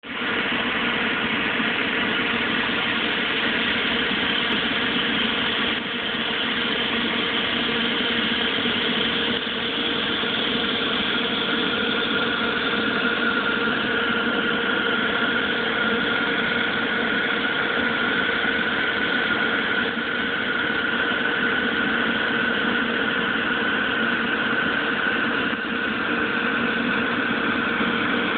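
Fan-gun snowmaker running steadily: a continuous whir with several held tones from the fan, over a hiss of water mist spraying from its nozzle ring.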